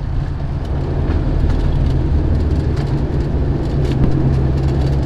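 Steady drone of a turboprop airliner's engines and propellers heard inside the passenger cabin, with a low hum underneath, on the approach shortly before landing.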